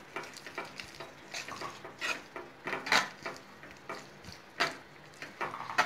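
A spatula scraping and knocking against a non-stick kadai while stirring a thick paste, in irregular strokes. There are several sharper knocks, the loudest about three seconds in and near the end.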